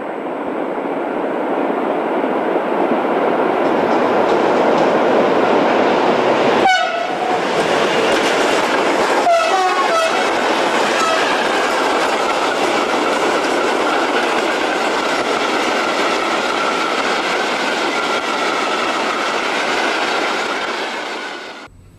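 Freight train rolling past on the rails: a steady, loud rush of wheels on track. Short horn notes sound about seven and ten seconds in, and a thin high tone wavers over the second half.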